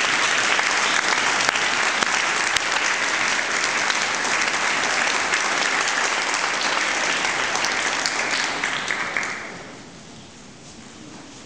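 Audience applauding, steady and dense, then dying away about nine and a half seconds in.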